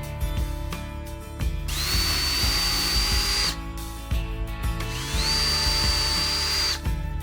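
Electric drill run in two bursts of about two seconds each, its motor whine rising quickly and then holding steady, over background music.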